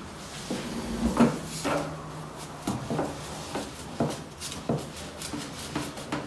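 A boiler's metal flue pipe being handled: a series of irregular knocks and scrapes, about two a second, over a steady low hum.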